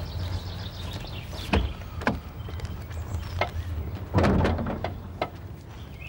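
A few clicks and knocks, then a louder clunk about four seconds in, as the Jaguar's door and bonnet release are worked and the bonnet catch lets go. A steady low hum runs underneath.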